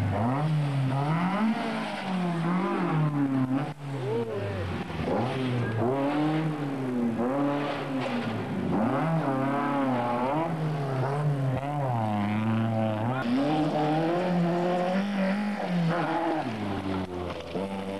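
Rally car engines revving hard on a gravel stage, the pitch climbing and falling again and again as the drivers accelerate, shift and lift, with a few brief dips in the sound.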